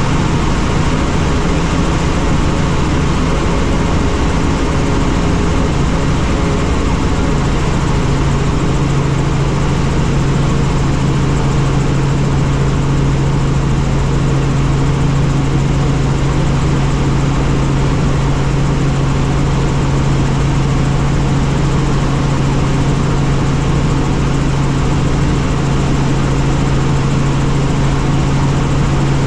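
Helicopter running with a loud, steady drone of engine and rotor. A low hum in it grows stronger about seven seconds in.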